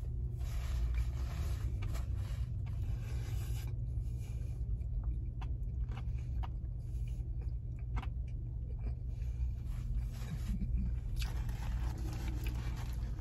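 A person chewing a mouthful of burger, with soft rustling and small clicks from its paper wrapper, over a steady low hum inside a car.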